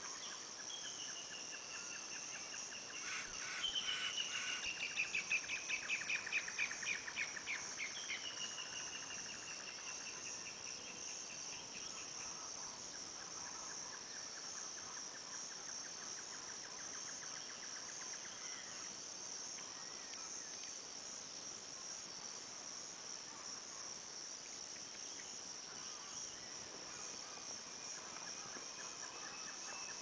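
Steady high-pitched drone of insects throughout, with birds calling over it: rapid trilled series that fall in pitch, loudest about four to eight seconds in, and fainter pulsed calls later.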